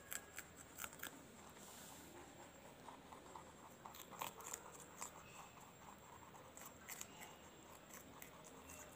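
Two white rabbits chewing green vegetable pieces: faint crisp crunches and snips from their teeth, coming in irregular quick runs.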